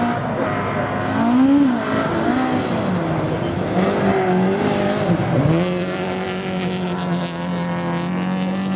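Hatchback rally car's engine running hard at racing speed. Its note rises and falls repeatedly in the first few seconds, then holds a steady high pitch through the last three seconds.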